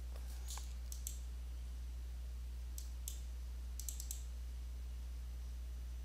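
Computer mouse button clicks: a few short pairs of clicks, like double-clicks, about a second in, around three seconds in and around four seconds in, over a steady low hum.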